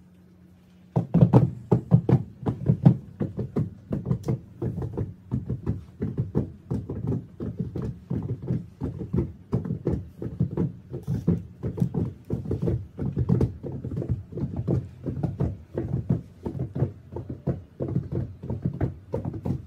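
A rapid, irregular run of low knocks and taps, several a second, starting about a second in and keeping on steadily.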